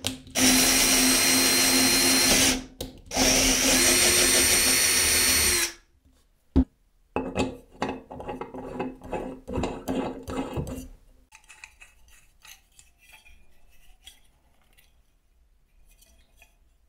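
Electric drill running steadily in two bursts of about two and a half seconds each, spinning a threaded rod into a hole in a steel plate held in a vise. Then about four seconds of irregular scraping and clicking of metal on metal as the angle grinder's side handle is screwed down onto the threaded stud.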